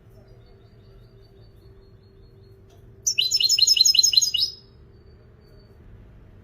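European goldfinch singing: faint thin high notes, then about three seconds in a loud phrase of about eight rapid repeated notes lasting just over a second.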